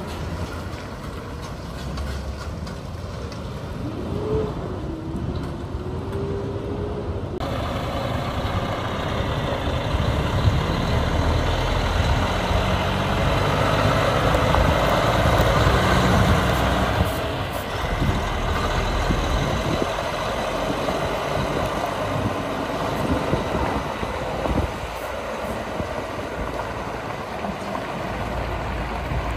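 Road trains rolling past: a heavy diesel truck's engine running under load with tyres crunching on gravel. The engine swells to its loudest about halfway through and eases off as the tanker trailers go by. Before that, a short whine rises and falls as a curtainsider trailer rolls past.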